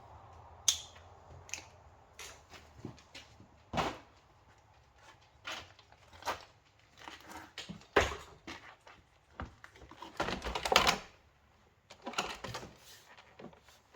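Scattered clicks, knocks and rattles of hands and tools working on the plastic housing of a Sharp vacuum cleaner as it is taken apart, with a denser run of rattling about ten seconds in.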